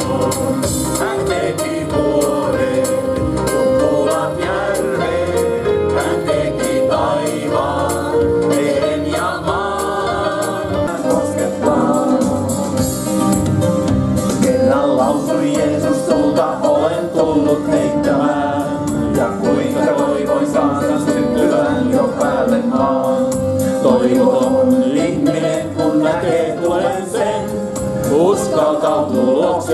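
Live Christian praise song: a group of singers, mostly women, sing together into microphones, backed by an electronic keyboard and amplified through stage speakers.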